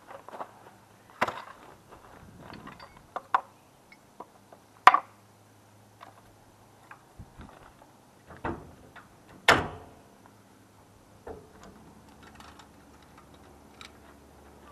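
Metal clanks and knocks at a boat trailer hitch as the coupler, safety chains and a hitch lock are fitted and locked. There are about five separate strikes, the loudest about five and nine and a half seconds in.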